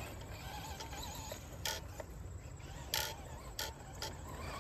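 Traxxas Modified RC car's electric motor and gear drive whining faintly as it drives off along a dirt track, the pitch wavering with the throttle, with a few sharp ticks.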